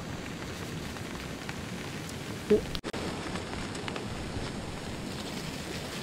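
Steady heavy rain falling, an even hiss, with one sharp knock about halfway through and a split-second gap in the sound just after it.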